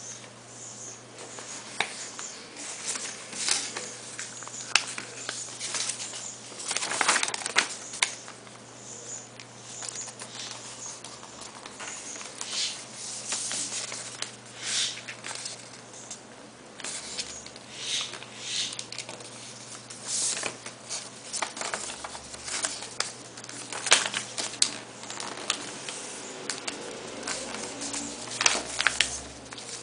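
A sheet of paper being folded by hand into a paper plane, with irregular short rustles, slides and creasing strokes as the folds are pressed flat, a few of them sharper and louder.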